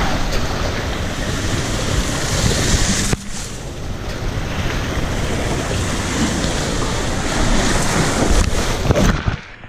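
Rushing water and wind on a camera carried down a water slide, with a rider sliding through the stream of water in the flume. Near the end the rider splashes into the pool, and the sound turns muffled.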